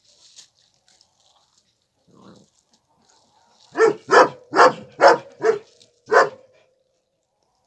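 A dog barking: six sharp barks in quick succession, starting about four seconds in.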